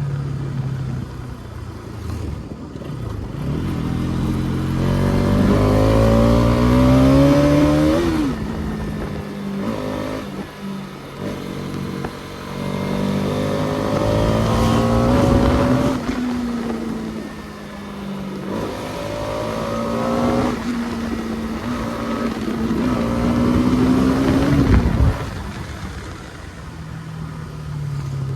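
Bajaj Pulsar NS200's single-cylinder engine pulling through the gears. Its pitch climbs, drops at a shift about eight seconds in, climbs again to a steady cruise, then falls sharply near the end as the throttle closes.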